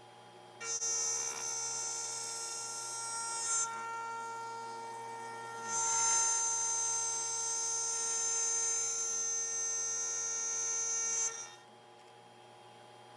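OneInfiniti CNC router spindle running with a steady high whine as the bit cuts wood. It gets louder just under a second in, dips for a couple of seconds, then rises again and falls away near the end.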